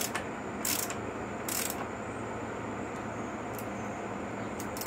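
Socket ratchet clicking in several short bursts as a bolt on a Suzuki DR-Z125 cylinder head is turned by hand.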